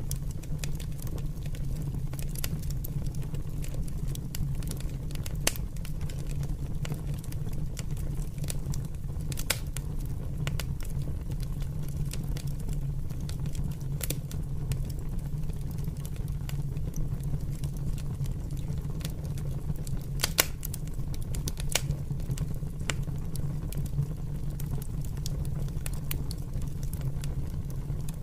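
Open fire burning, with irregular crackles and pops throughout and a few sharper snaps, over a steady low rumble.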